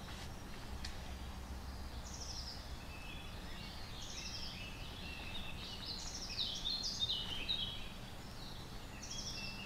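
Songbirds singing, short repeated phrases from more than one bird, busiest about six to seven and a half seconds in, over a steady low hum and hiss.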